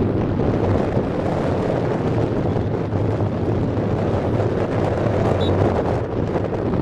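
Wind buffeting the microphone: a steady, low, loud noise.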